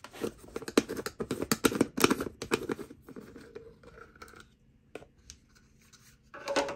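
Plastic screw-on lid being twisted off a large jelly jar: a fast run of scratchy clicks and scrapes from the threads for about three seconds, then a few scattered clicks as the lid comes free, and a short clatter near the end.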